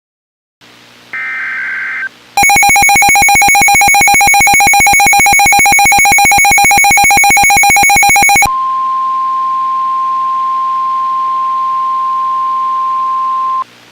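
NOAA Weather Radio alert sequence received on a Midland WR-120EZ weather radio: a brief digital data burst (the SAME header), then the radio's own loud, rapidly pulsing warning alarm for about six seconds, then the steady 1050 Hz NWS warning tone for about five seconds, which cuts off just before the announcement, signalling a high wind warning.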